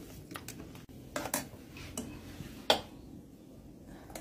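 Utensils knocking and clinking against a stainless steel pot while boiled tejocote fruit is mashed and stirred. About half a dozen irregular clicks, the loudest about two and three-quarter seconds in.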